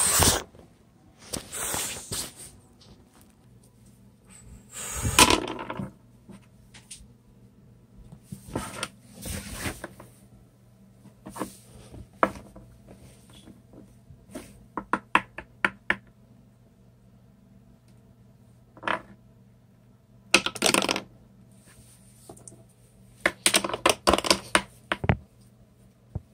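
Wax crayons being handled and set down on a wooden desktop: scattered light clicks and knocks among rustles of movement, with a quick run of small taps about fifteen seconds in.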